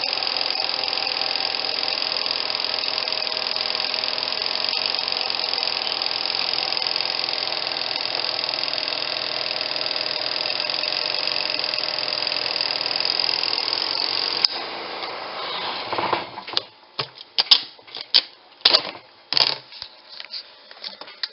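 Auauna twin-tub portable washing machine's spin-dryer tub running steadily and a bit noisily, then switching off about two-thirds of the way through and winding down. A run of sharp, irregular knocks and clatters follows.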